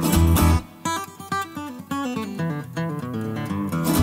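Background music led by acoustic guitar, with quick picked and strummed notes and a few heavy low thumps just after the start and again near the end.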